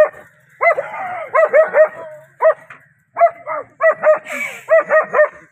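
German Shepherd barking in rapid volleys, about a dozen short, sharp barks, several bunched close together.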